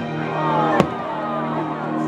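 Fireworks show music playing, with one sharp firework bang a little under a second in.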